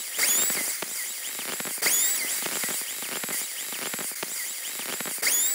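Solvent sprayed through a long nozzle into a hybrid battery cooling fan's blower housing: a steady hiss, with faint rising-and-falling tones recurring every second or two.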